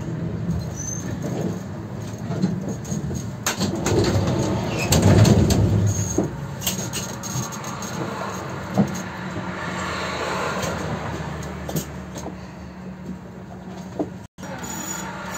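Konstal 105Na trams running: wheels rumbling on the rails, with a steady low hum and many short clicks and knocks over the track, loudest about five seconds in.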